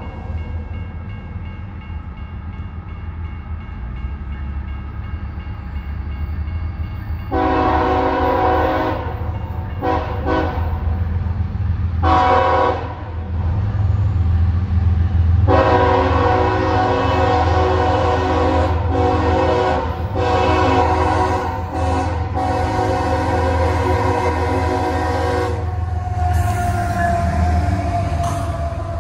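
Freight diesel locomotive's air horn sounding at a grade crossing: several blasts, the last held for about ten seconds. Under it runs the low, steady rumble of the passing train.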